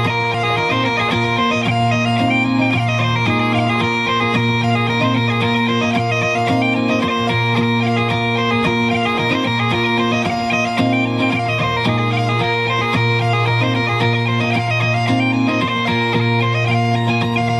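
Bagpipe music: a pipe tune of quickly changing melody notes played over a continuous low drone.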